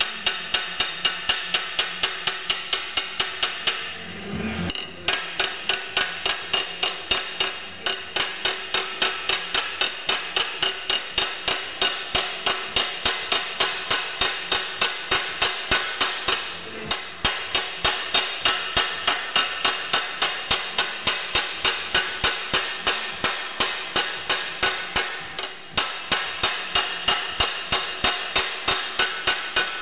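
Small hammer striking a sheet-metal repair strip over a phenolic hammer form clamped in a vise, forming a semi-circle relief. The blows are rapid and even, about three a second, with a few short breaks.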